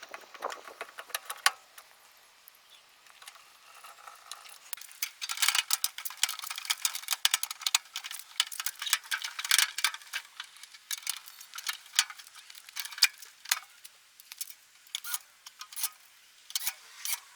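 Irregular small clicks and light metallic rattles of parts and screws being handled while a microwave oven is put back together, busiest in the middle stretch.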